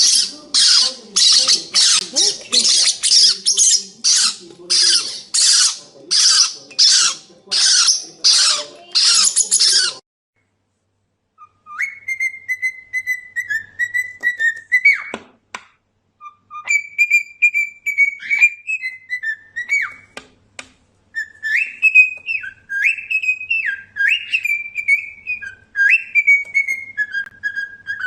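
A parrot squawking over and over in harsh calls, about two a second, which stop abruptly about ten seconds in. After a short break a parrot whistles a string of clear notes that slide up and down in pitch.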